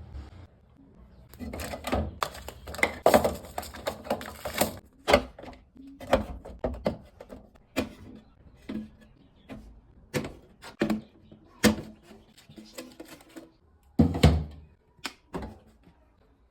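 Food containers and jars being handled and set down while a refrigerator is organized: a quick run of clinks and clunks, then scattered single knocks, and a heavier thunk near the end.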